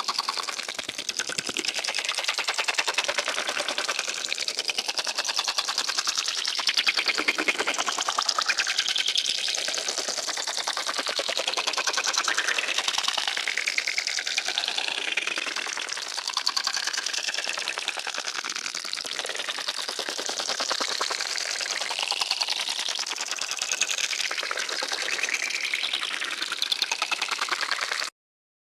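Sci-fi alien creature sound effect: a fast, dense clicking chatter, high-pitched and shifting in tone as if vocalizing. It cuts off suddenly near the end.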